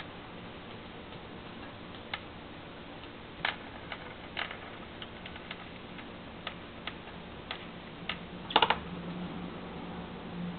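A small pet thumping its feet on a windowsill in irregular sharp taps, with a quick run of several taps near the end that is the loudest: foot-thumping as an alarm signal, apparently because something frightened it. A low steady hum comes in after the last taps.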